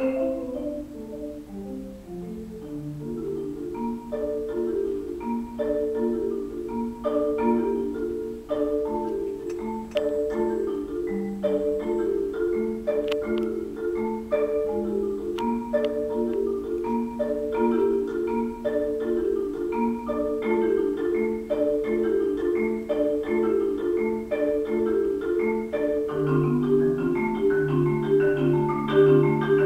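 Solo concert marimba played with yarn mallets: a steady, rolling ostinato in the middle register, with higher notes sounding over it about once a second. About 26 seconds in, low bass notes join and the texture grows fuller and louder.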